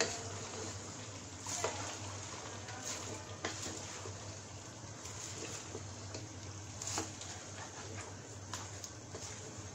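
Wooden spatula turning chopped raw cabbage into beef in a metal pot: rustling and scraping, with a few sharp knocks against the pot, over a steady low hum and hiss.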